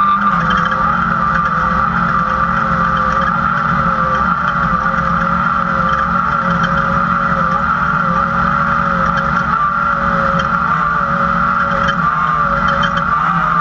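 Class 2000 off-road race car's engine running loud and steady at speed, heard from inside the cockpit, its pitch rising and dipping only slightly.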